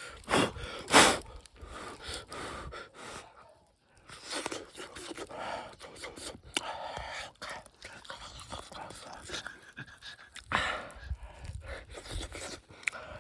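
A person's breath in quick huffs and pants, loudest about a second in.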